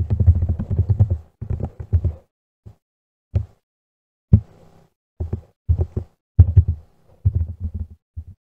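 Computer keyboard typing heard as irregular dull thumps: a quick run of keystrokes in the first two seconds, then single keys struck at uneven intervals as a password is entered.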